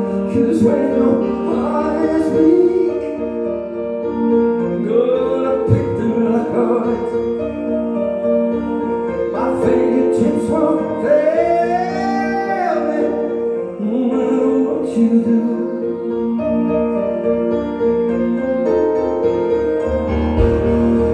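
Live keyboard music: a Roland stage piano and a synthesizer playing sustained chords, with a voice singing over them at intervals.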